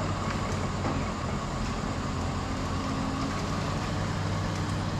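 An engine running steadily at low speed, a constant low hum with no change in pitch.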